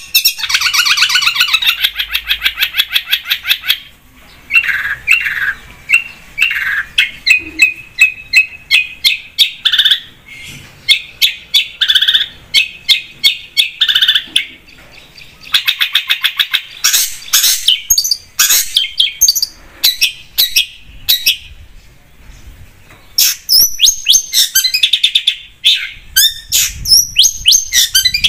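Long-tailed shrike (cendet) singing a fast, varied song: runs of rapid repeated notes and harsh chattering phrases, broken by short pauses.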